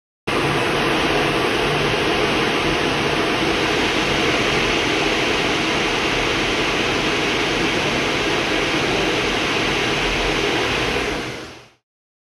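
Steady rushing noise of airflow and engine heard inside the cockpit of a Lockheed F-104 in supersonic flight. It cuts in at once and fades out near the end.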